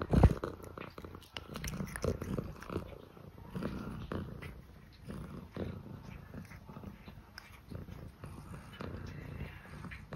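Scottish fold cat purring, a low uneven rumble. Right at the start there are a few loud knocks from the phone being handled close to the cat.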